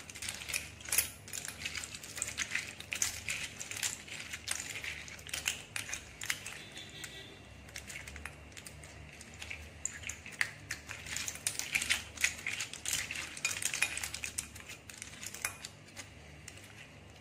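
Cut clam shells clicking and clattering against one another and the glass bowl as a hand tosses them in a wet spice paste, in a dense run of small clicks that thins out about eight seconds in.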